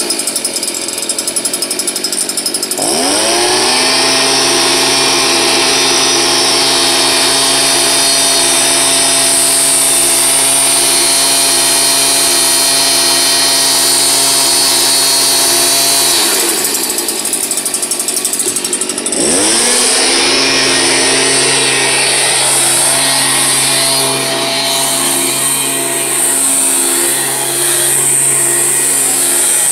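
Stihl BG 86 leaf blower's small two-stroke engine rises from idle to full throttle and holds a steady high pitch for about thirteen seconds. It drops back to idle for a few seconds, then revs up and holds full throttle again. It is being run wide open to check that it holds about 8000 rpm after a carburetor tune-up, the complaint having been that it starts but loses power.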